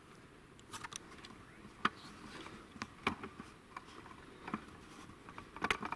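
Scattered light clicks and knocks at irregular intervals, sharpest about two seconds in and in a cluster near the end, over faint background noise.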